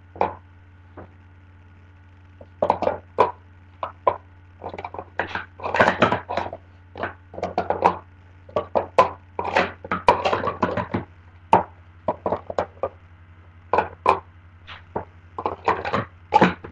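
Plastic sport-stacking cups clacking as they are quickly stacked up into pyramids and swept back down: a fast, uneven run of sharp clicks and clatters with short pauses between sequences, starting about two and a half seconds in.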